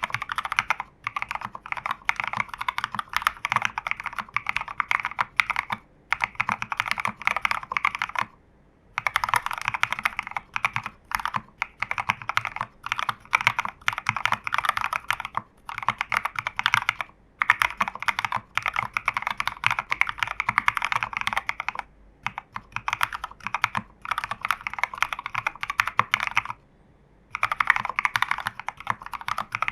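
Continuous fast typing on a custom 40% keyboard in a plastic case with foam: lubed Reversed BCP switches (NK Cream housings, Cherry black stems and springs) under SA-profile keycaps. The keystrokes run in steady runs lasting several seconds, with brief pauses a little over a third of the way in and twice near the end.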